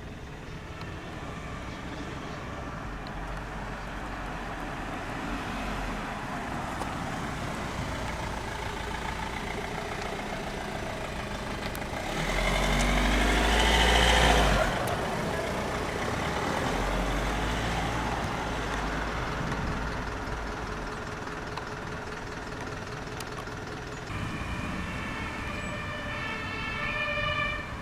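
A heavy vehicle drives past close by about halfway through, its engine growing louder and then falling away, over steady outdoor vehicle noise.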